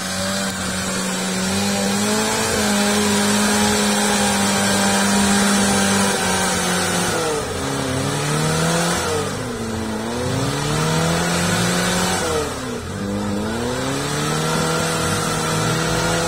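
Suzuki Jimny 4x4's engine revving hard under load on a muddy uphill track, held at high revs for several seconds, then falling and rising again three times.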